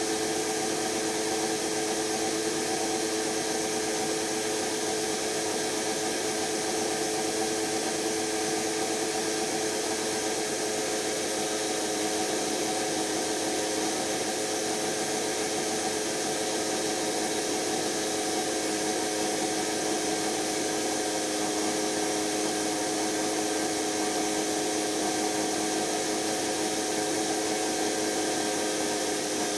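Electra ELEC1647A3 washing machine's brushed motor running steadily at speed, a constant whine over a hiss. The motor has a damaged commutator and is dying.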